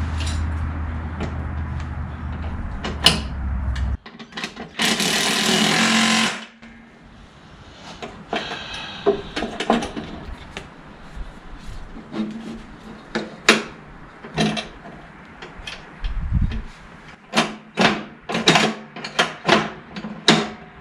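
Metal mower-deck parts and hand tools being handled: a run of sharp clanks, clicks and knocks, thickest near the end. A steady low hum cuts off suddenly about four seconds in, and a loud hiss-like burst lasts about a second and a half soon after.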